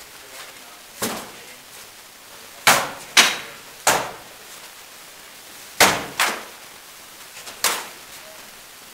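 Rattan sword blows landing on shields and armour in sword-and-shield sparring: seven sharp cracks at an uneven pace, some in quick pairs, each with a short echo off the hard walls.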